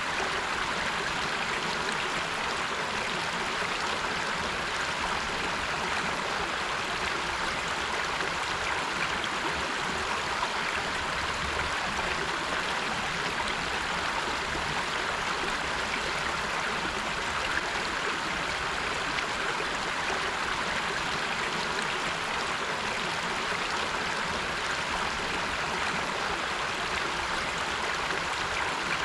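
River water flowing over rocks: a steady, even rushing of a stream.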